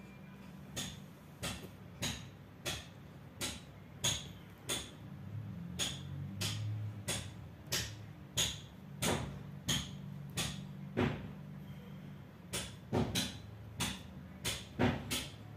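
Small screwdriver turning screws on a laptop motherboard, giving a sharp little click about every two-thirds of a second, with the clicks coming faster and bunched together near the end. A low steady hum runs underneath.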